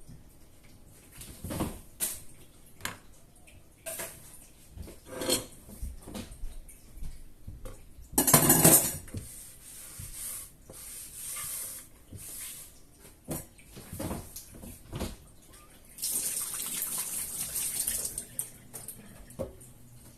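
Kitchen clatter of dishes and cutlery: scattered clinks and knocks, with one loud clatter just before halfway. Near the end comes about two seconds of steady rushing noise.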